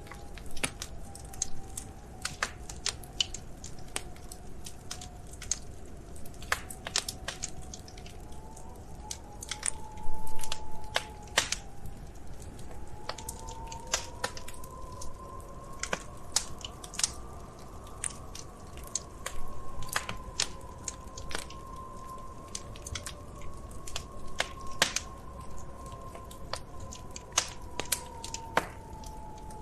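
Wood fire crackling in a fireplace, with irregular sharp pops over a low steady rumble. A faint, wavering whistle drifts slowly up and down in pitch underneath. A denser burst of louder crackles comes about ten seconds in, and a smaller one near twenty seconds.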